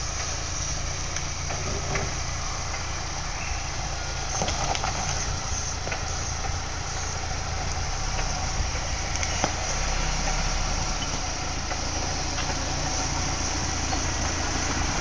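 Lada Niva 4x4's engine running steadily at low revs, a low rumble, as the car creeps down a steep dirt slope.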